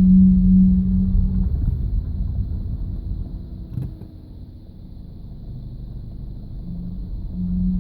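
Low-pitched groan from the front drivetrain of an Audi A3 2.0 TDI under load, a steady hum over the diesel's low rumble. It cuts out about a second and a half in and comes back near the end, with a single click in between. It is the fault noise that stops instantly when the clutch is pressed and persists after a new steering rack, wheel bearing, discs and pads.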